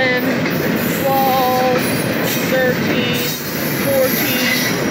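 Loaded double-stack intermodal well cars rolling past at close range: a steady loud rumble of steel wheels on rail, with short squealing tones that come and go several times.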